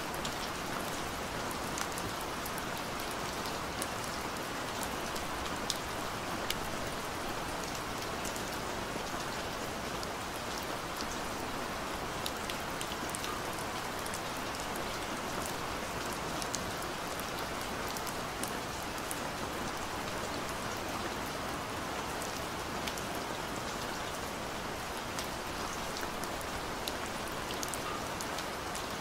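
Steady rain falling, an even hiss scattered with sharp taps of individual drops.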